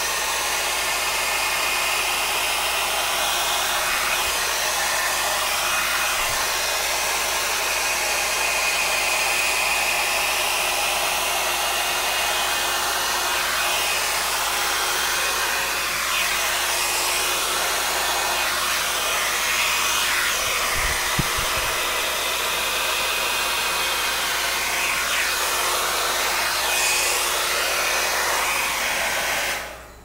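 Conair InfinitiPro all-in-one dryer brush blowing steadily on its low setting while brushing through hair; it cuts off near the end.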